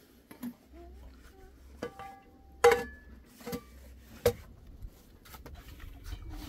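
Metal cooking utensils clinking against a pot or bowl: a handful of sharp knocks, the loudest about two and a half seconds in with a brief ringing tone.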